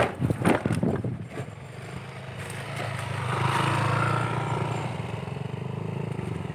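Motorcycle engine running steadily, swelling louder about three seconds in and then easing off, with a few knocks in the first second or so.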